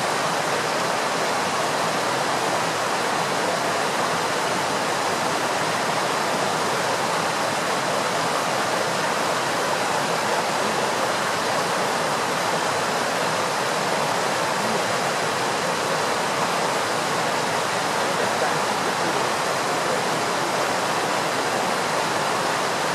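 Steady rush of flowing water, such as a stream or weir, an even hiss without breaks.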